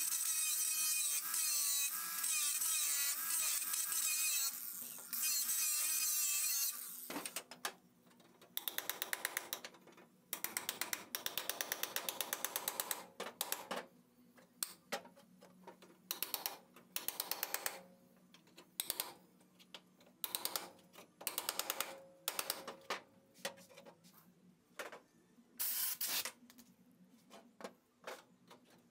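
Angle grinder cutting through the steel pinch weld of a car's inner and outer rocker panels, its motor running under load; it stops after about seven seconds. After that come repeated short bursts of a rapid hammering or clattering power tool working the floor-pan metal, with pauses between them.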